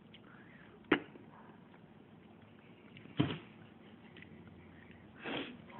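Sharp crunches of a Doritos tortilla chip being bitten: one about a second in, a louder one just after three seconds, and a softer crunch near the end.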